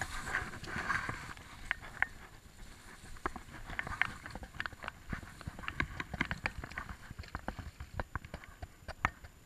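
Irregular light clicks and knocks from handling a fly rod and reel while playing a hooked fish, with a brief hiss near the start.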